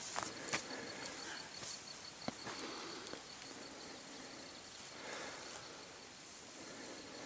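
An insect trilling in a high, steady, rapidly pulsed chirr, with a few faint clicks in the first couple of seconds.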